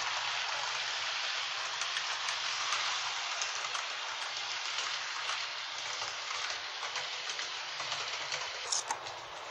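H0 scale model train, a BR 218 diesel locomotive with double-deck coaches, rolling along the track with a steady, even rushing hiss. A short sharp click comes near the end.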